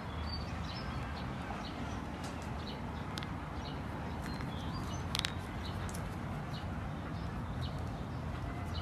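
Outdoor ambience: birds chirping in short calls over a steady low background rumble, with one short sharp click about five seconds in.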